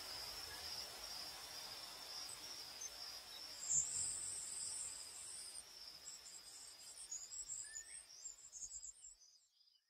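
Crickets chirping in a steady high trill, joined about four seconds in by a second, higher patchy chirping with a brief louder moment as it begins; the sound fades out near the end.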